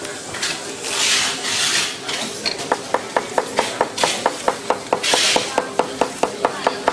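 Plastic packaging rustling and crinkling in short bursts as tablets are slid across and handled. From about three seconds in, a rapid, even clicking, about five clicks a second, runs alongside.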